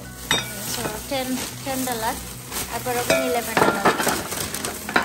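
Food frying in hot oil, sizzling in a pan as it is stirred, with a few sharp clicks of a utensil against the pan. A voice or tune that wavers in pitch sounds in the background.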